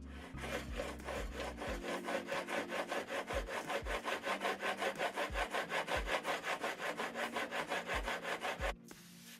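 Steel chisel rubbed rapidly back and forth on a diamond sharpening plate, about five even gritty strokes a second, stopping shortly before the end.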